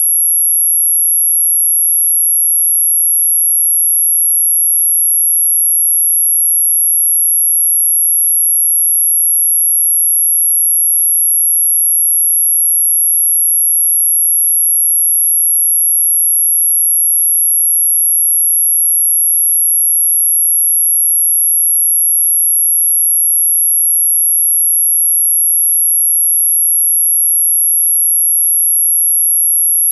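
Anti-mosquito repellent tone: a single pure sine tone, very high-pitched and held perfectly steady without a break.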